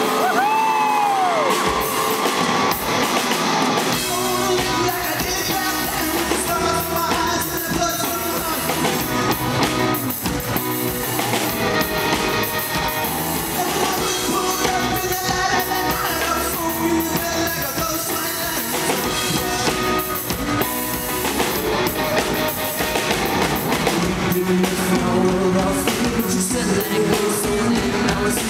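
Live rock band playing a song: guitars, bass and drums under a male lead vocal. The bass and drums come in about two seconds in.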